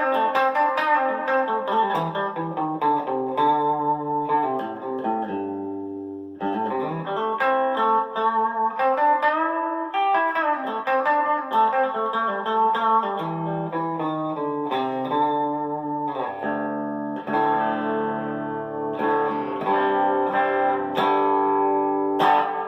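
Harley Benton TE-30 Tele-style electric guitar played clean through a Marshall Origin amp head with light compression and reverb, picking a mix of chords and single notes. There are bent notes around ten seconds in.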